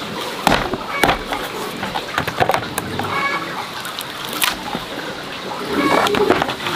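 Chickens clucking, with a few sharp knocks of a knife striking a chopping board as a pumpkin is cut: about half a second in, a second in, and again past four seconds.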